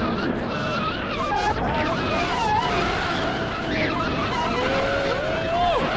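Wind rushing over the camera microphone during a tandem parachute descent under an open canopy, a steady rush with wavering whistle-like tones over it.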